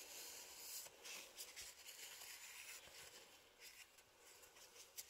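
Near silence, with faint rubbing and a few light ticks.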